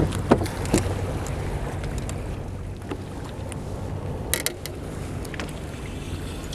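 A few sharp knocks and handling sounds on a small fibreglass boat, then a short scuffing noise, over a steady low rumble.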